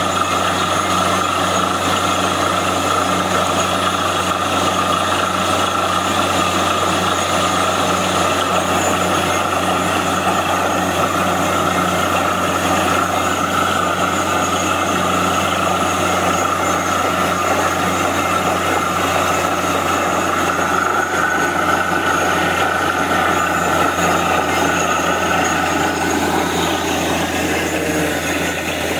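Truck-mounted borewell drilling rig running steadily under load: a steady engine drone, with muddy water gushing and splashing out of the borehole around the drill pipe.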